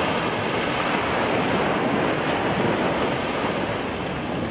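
Sea surf breaking and washing on the shore, a steady rushing noise, with some wind buffeting the microphone.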